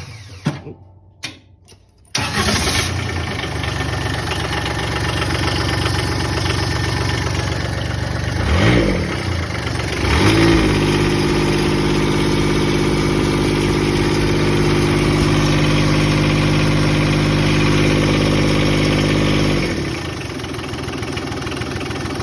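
Kubota D722 three-cylinder diesel in a John Deere 70 skid steer fires up about two seconds in and settles into a steady idle. About ten seconds in it is throttled up and held at a higher speed, then drops back to idle near the end.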